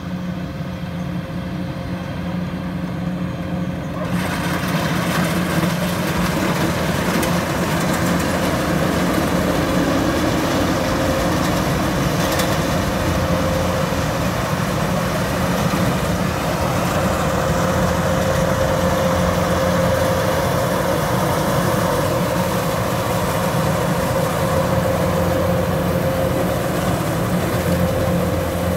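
Kubota DC-105X rice combine harvester running steadily as it cuts and threshes rice: a constant diesel engine drone with a steady machinery whine. About four seconds in it becomes louder and brighter, heard close up.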